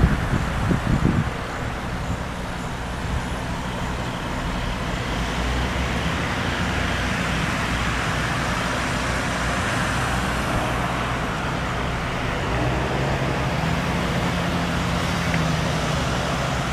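Armored police truck's engine running steadily, with a few low thumps in the first second. Its engine note rises about three-quarters of the way through as the truck is moved, with other car engines and traffic underneath.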